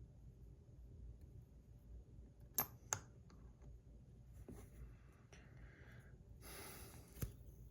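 Quiet handling of a metal fidget spinner and its buttons. Two sharp clicks come about two and a half and three seconds in, and another near the end, with soft rubbing and rustling between them.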